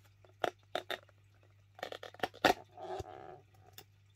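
Clear plastic insect shipping pot being handled and opened: a series of sharp plastic clicks and taps, the loudest a snap about two and a half seconds in, followed by a brief crackle.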